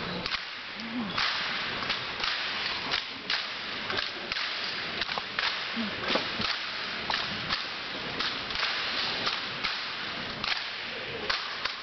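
Rifle drill team handling rifles: an irregular run of sharp slaps and clacks as hands strike the rifles and rifle butts hit the hardwood gym floor, several cracks a second.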